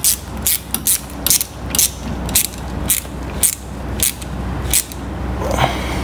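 Small ratchet with a 7 mm socket clicking in short strokes, about two a second, as it winds a worm-drive hose clamp on a go-kart coolant hose tight. The strokes slow a little toward the end.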